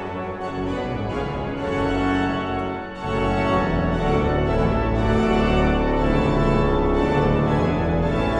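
Church pipe organ playing sustained chords over a deep pedal bass. The sound dips briefly about three seconds in, then comes back louder and fuller.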